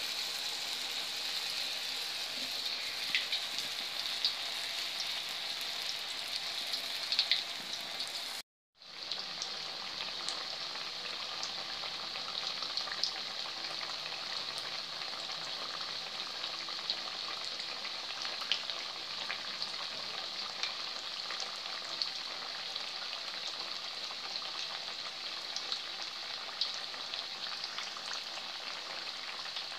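Batter-coated tempe slices deep-frying in hot oil in a wok: a steady sizzle with scattered crackles and pops, cutting out for a moment about eight seconds in.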